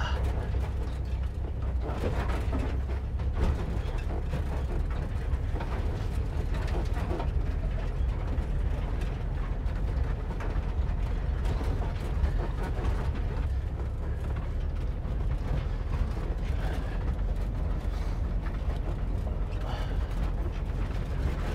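1958 VW split-window bus crawling slowly over a rocky trail: a low, steady rumble from its air-cooled flat-four engine and drivetrain, with the body and fittings creaking and rattling over the bumps.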